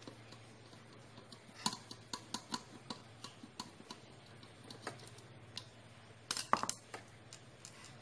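Metal clicks and ticks of a screwdriver working against the steel housing of a twin-tub washing machine's spin-dryer motor: a run of sharp ticks, then a louder clatter of clicks a little over six seconds in, over a faint steady low hum.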